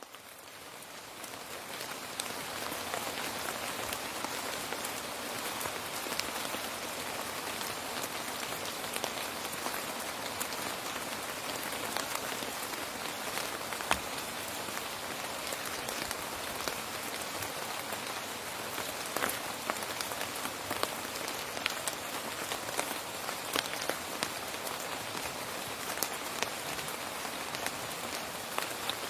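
Steady rain falling, fading in over the first two seconds, with individual drops ticking sharply here and there and one louder drop about halfway through.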